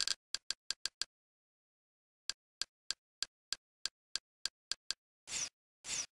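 XBMC media-centre menu sound effects: a run of short, sharp clicks as the cursor steps through a list, quick at first and then about three a second, followed near the end by two longer swishes as a menu item is selected.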